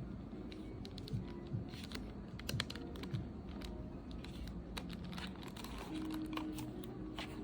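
Scattered, irregular light clicks and taps from hands handling a small plastic label printer.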